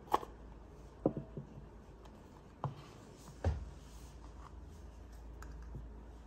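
Handling noise: a few separate light clicks and knocks, four main ones within the first three and a half seconds, with faint ticks after.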